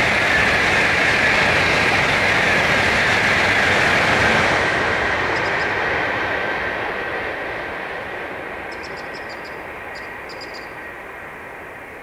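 Tokaido Shinkansen bullet train passing at speed, a loud rushing noise with a steady high hiss. It holds for about four seconds, then fades slowly as the train draws away.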